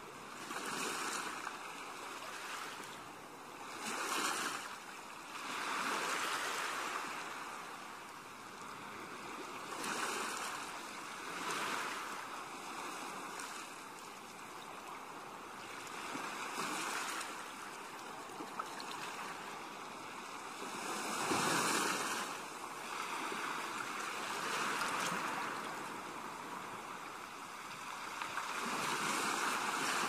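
Ocean surf: waves washing in, the hiss of water swelling and fading every few seconds, with the strongest surge about two-thirds of the way through.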